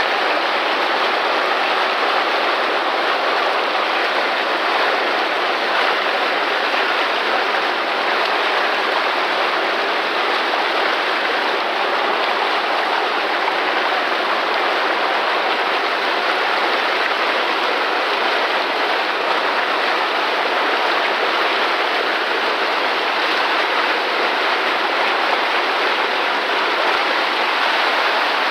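Loud, steady rush of water pouring down a fish ladder and over rocks, unbroken throughout.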